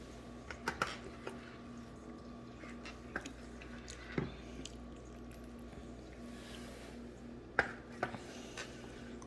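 A few scattered light clicks and knocks, as of small objects being handled and set down, over a steady hum. The sharpest knock comes about two-thirds of the way through.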